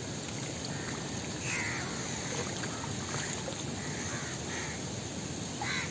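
Birds calling outdoors, about five short calls at irregular intervals over a steady background hiss.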